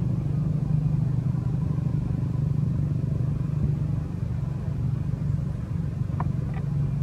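A motor running steadily nearby with a constant low drone. Two short, higher sounds cut through it about six seconds in.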